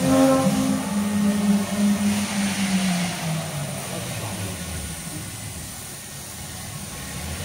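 4-axis foam CNC router with swing head running while it carves a foam block: a machine hum that steps up and down in pitch as it moves, getting quieter after about three seconds.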